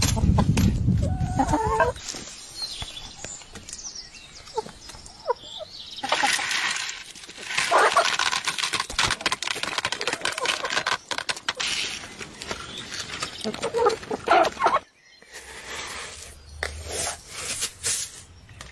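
Domestic hens clucking as they peck and scratch at scattered feed, with heavy low thudding in the first two seconds.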